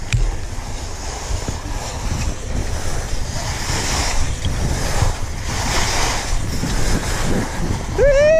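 Skis hissing and scraping over spring corn snow on a downhill run, with wind buffeting the microphone; the scrape swells every couple of seconds, once with each turn. A voice calls out right at the end.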